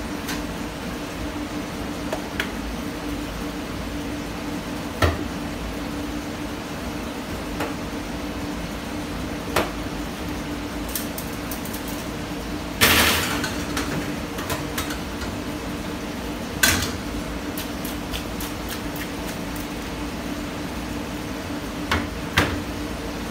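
Scattered metallic clanks and rattles from a wire breading basket knocking against a stainless-steel breading table over a steady kitchen hum. The loudest is a longer rattling clatter about halfway through, and two quick knocks come near the end.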